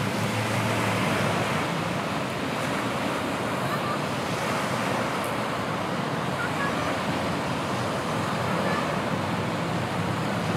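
Steady rushing noise outdoors, with a faint low hum underneath.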